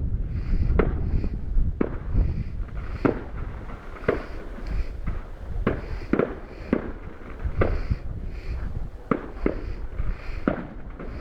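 Fireworks display: an irregular series of sharp bangs, roughly one or two a second, over a steady low rumble.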